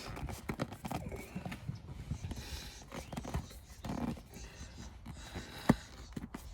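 Hands forcing a fitted seat cover onto a truck headrest: irregular scuffing, creaking and small knocks of the cover material being pulled and pushed, with one sharper click near the end.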